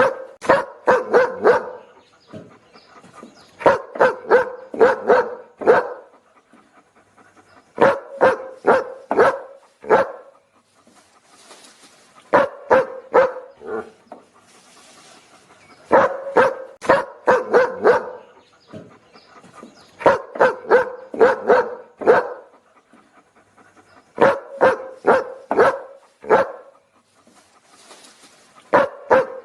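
A dog barking in quick volleys of five or six barks, the same volley repeating about every four seconds with short pauses between, as a looped recording.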